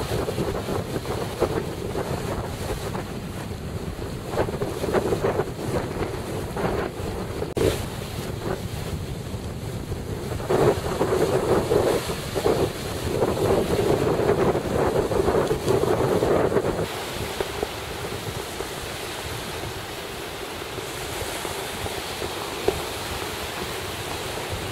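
Wind buffeting the camera microphone in uneven gusts over the wash of surf on a windy beach. The gusts are heaviest around the middle and settle into a steadier rush after about three quarters of the way through.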